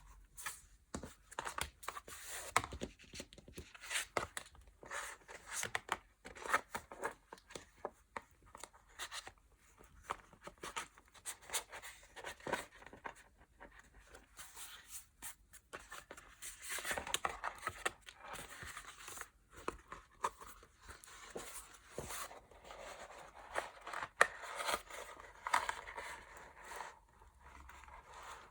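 Paper and plastic packaging being handled by hand: rustling and crinkling with many small clicks and taps, in denser stretches about two thirds of the way through and again near the end.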